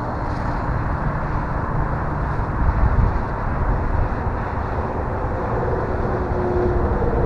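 Electric RC plane (E-flite Carbon Cub S2) flying, its brushless motor and propeller a faint droning tone that comes in more clearly about five seconds in, under a steady low rumble of wind on the microphone.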